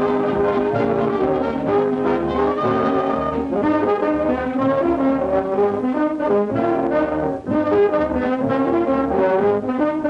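Orchestral cartoon score, brass to the fore, playing a melody over a steady bass beat.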